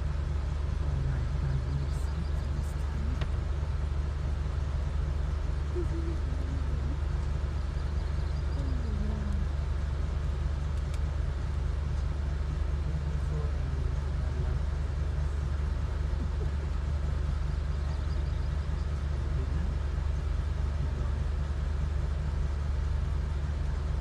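Steady low rumble of a vehicle in motion, unchanging throughout.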